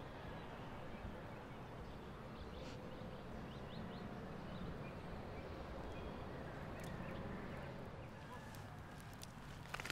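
Outdoor ambience: a steady low background hiss with a few faint, short bird chirps, and a brief crackle just before the end.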